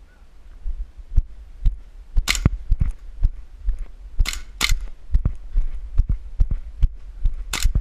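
Airsoft pistol firing four sharp shots: one about two seconds in, a quick pair near the middle, and one near the end. Under them runs a steady rhythm of thudding footsteps, about two to three a second.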